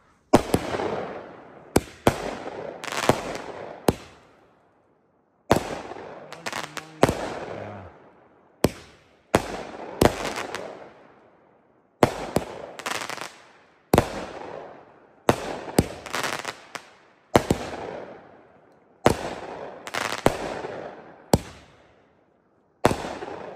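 A Pro Line 'Brocade to Red Mines' firework cake firing shot after shot: sharp reports, singly and in quick clusters, each trailing off in a fading hiss. There is a short pause about four seconds in, then the shots resume.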